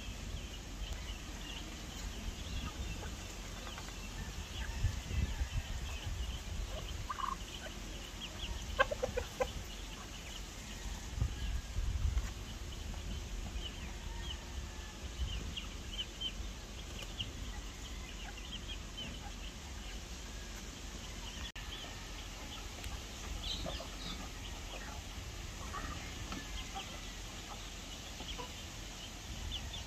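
Backyard free-range chickens and turkeys calling: steady clucking with many short high chirps throughout, and a few louder calls in the first half.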